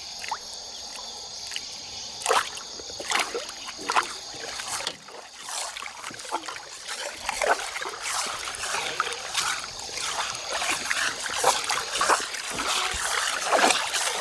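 Water splashing and sloshing along the side of a small fishing boat moving through the water, in irregular splashes that grow busier about five seconds in.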